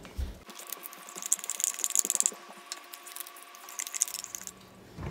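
Metal spoon scraping yogurt out of a small plastic yogurt cup: a quick run of rasping clicks lasting about four seconds, with a faint steady hum behind.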